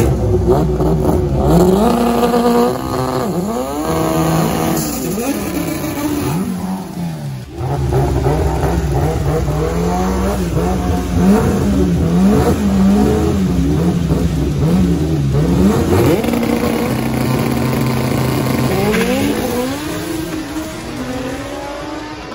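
Turbocharged Honda Civic drag car's 2.0-litre GSR four-cylinder engine revving up and down repeatedly at the start line. It holds steady revs for a few seconds, then launches and accelerates away, the sound fading as it goes down the track.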